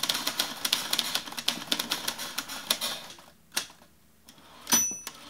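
Manual typewriter typing: a fast run of key strikes for about three seconds, then a few single strikes, then the carriage-return bell dings once near the end, followed by another strike.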